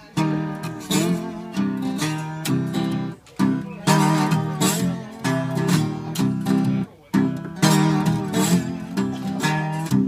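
Acoustic guitar played bottleneck slide-style, a steady rhythmic blues riff of repeated strummed chords and slid notes.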